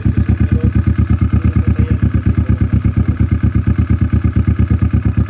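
Kawasaki Vulcan S 650 parallel-twin engine idling steadily after an oil change, an even, unchanging beat of exhaust pulses.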